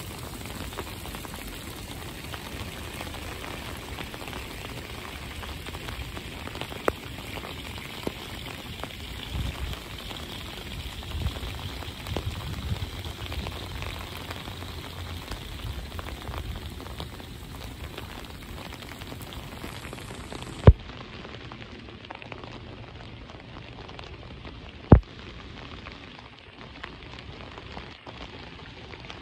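Steady rainfall, a dense patter of drops, with two louder sharp taps, the first about two-thirds of the way through and the second about four seconds later.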